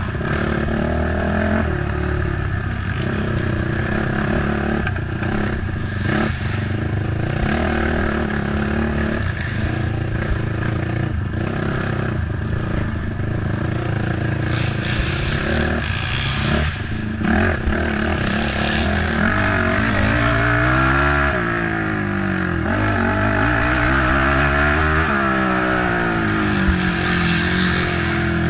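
Race ATV's engine running hard, its pitch climbing and dropping repeatedly in the second half as the throttle is worked, with knocks and clatter from the quad over rough ground.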